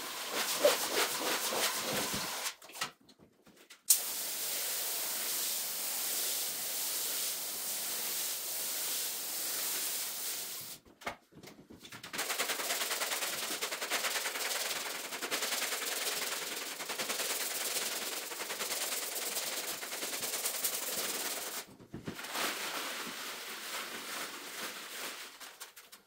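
Sped-up rug-cleaning work: a dense, fast rattling and scraping, broken by three short gaps.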